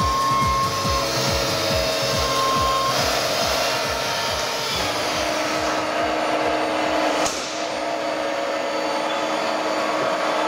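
Ixion TL1400 deep hole drilling machine running: a steady whirring machine noise from the spindle head, with a low pulsing a few times a second through the first half that gives way to a steady hum.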